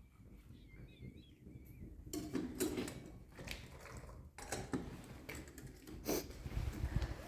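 Glasses and dishes clinking and knocking, a run of sharp clicks and clatters starting about two seconds in, as tea is served.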